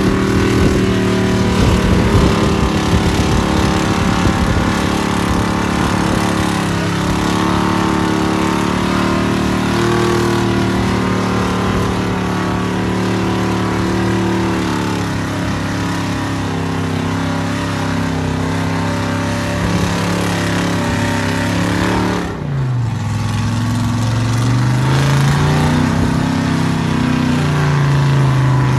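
Mega truck's engine running under load as it grinds slowly through deep mud, its revs rising and falling. About 22 seconds in the revs drop sharply, then climb back up.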